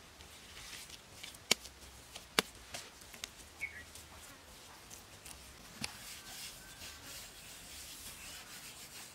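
Dry grass rustling and scraping as gloved hands work it into place against a mud wall, with two sharp clicks about one and a half and two and a half seconds in, and lighter ticks after.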